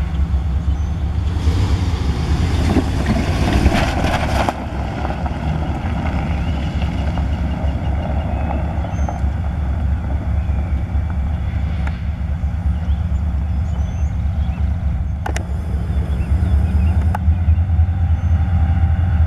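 Diesel locomotive of an approaching freight train running with a steady low rumble, growing a little louder near the end. About a second in, a burst of hissing noise lasts about three seconds, and two sharp clicks come near the end.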